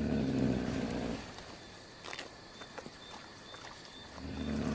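Puma growling over a guanaco carcass: two low, rumbling growls, each about a second and a half long, one at the start and one near the end. Scattered sharp clicks of chewing on the carcass come between them.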